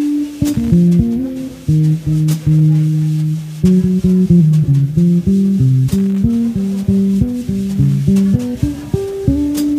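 Instrumental music: a melodic line of single plucked notes on guitar with bass guitar, held notes at the start and near the end and quicker runs in between, with no singing.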